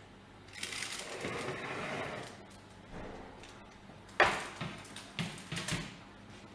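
A baking tray scraping as it is slid out along the oven rack, a rasp lasting about a second and a half. About four seconds in comes a sharp knock, then a few lighter knocks as the tray with the cake in its metal baking ring is set down on the cooktop.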